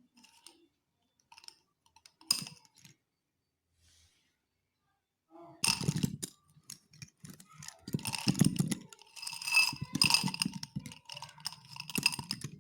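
Slate pencils clicking and clinking against one another as they are handled. A few light clicks come first, then a longer stretch of rattling with a bright ringing chink.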